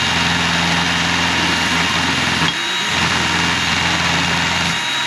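Steady motor hum, dipping briefly twice.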